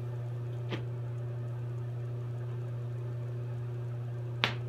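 Bench glassblowing torch burning with a steady low hum, with two short clicks, one about a second in and one near the end.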